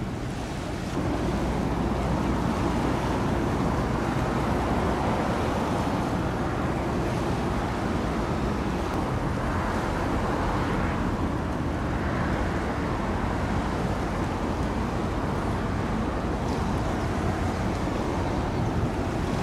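Low steady drone of a passing container ship under the rush of its bow wave and wash, with wind buffeting the microphone. The sound swells about a second in and then holds steady.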